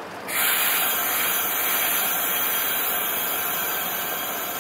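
Loud, steady hiss of pressure venting from the standing steam-hauled train. It starts suddenly just after the start and slowly eases off.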